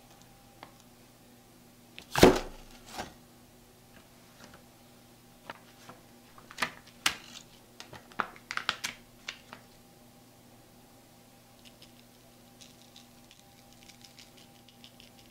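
A single loud knock about two seconds in, then crisp crackling and rustling of parchment paper being peeled away from a set chocolate slab. Near the end come faint quick light taps as cocoa powder is sifted over the top.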